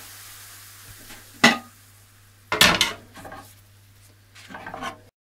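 Cookware clanking on a gas hob: two sharp knocks about a second and a half and two and a half seconds in, then lighter clatters, over a faint hiss from the simmering pan. The sound cuts off abruptly near the end.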